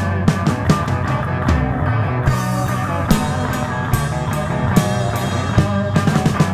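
Instrumental progressive rock in an Italian prog and krautrock style: a full band with steady bass notes, guitar and drums hitting frequently.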